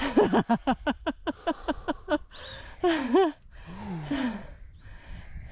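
A hiker laughing in a quick run of breathy bursts for about two seconds, then sighing and gasping for breath, winded from a steep uphill climb.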